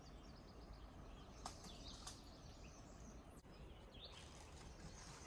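Near silence: faint outdoor ambience with a few brief, faint bird chirps, the clearest about four seconds in.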